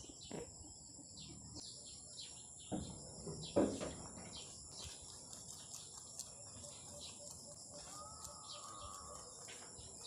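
Faint background of a steady high insect trill with scattered short bird chirps, and a couple of soft knocks about three seconds in.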